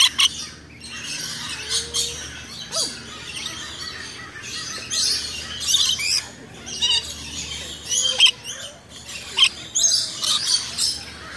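Lorikeets giving short, shrill chirps and screeches, again and again.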